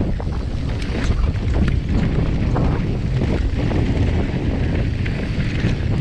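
Wind rushing over the microphone as a mountain bike descends a steep dirt track fast, with tyres crunching over loose gravel and many short clicks and rattles from the bike.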